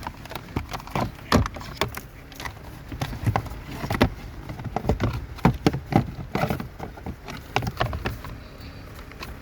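Irregular knocks and clicks of a plastic evaporator housing cover being handled and pushed into place under a Nissan Altima's dashboard.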